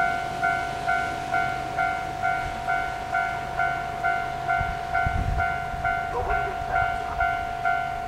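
Level crossing warning bell sounding with the barrier down, an even, repeated ringing about twice a second over a steady tone: the signal that a train is approaching.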